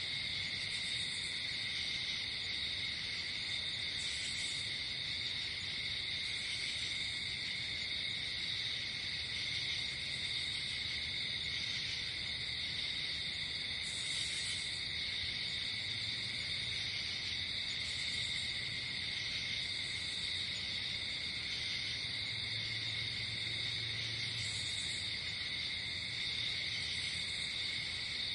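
Night chorus of crickets: a steady, unbroken trilling, with a higher chirp cutting in every few seconds.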